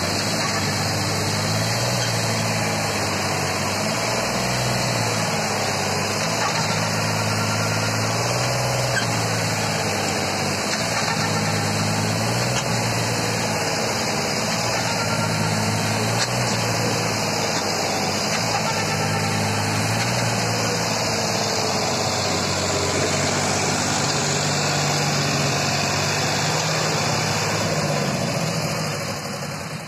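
Sonalika tractor's diesel engine working under load, hauling a loaded trolley through heaped soft earth. Its pitch keeps rising and falling as the engine speed changes.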